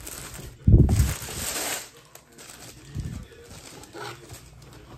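Tissue paper rustling and crinkling as a cardboard clothing parcel is unpacked. There is a heavy handling thump just under a second in and a softer knock about three seconds in.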